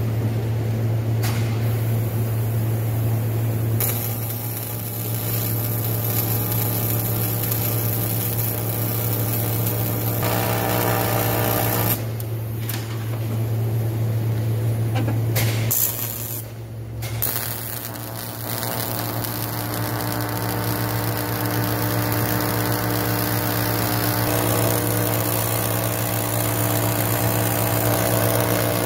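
TIG welding arc buzzing steadily as cracks in a 1979 Bass Tracker's aluminum hull ribs are welded up, with two short breaks a little before and after halfway where the arc stops.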